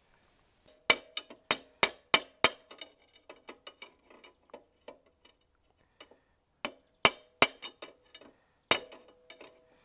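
Flat steel bar used as a makeshift C-spanner, knocked against the threaded spring preload collars on a Suzuki DR650's rear shock to slacken them. Sharp metal-on-metal clanks, each with a short ring: a quick run of about six hard strikes a second in, lighter taps, then a few more hard strikes later, the last leaving a ringing tone.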